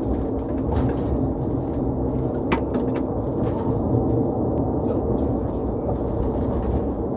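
Steady road and engine rumble inside a moving patrol car's cabin, with a few faint clicks and knocks.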